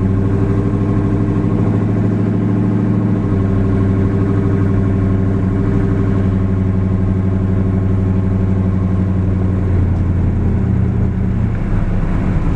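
Cammed V8 pickup engine pulling away from a stop under part throttle, heard from inside the cab; its note changes about three seconds in and then holds steady as it cruises.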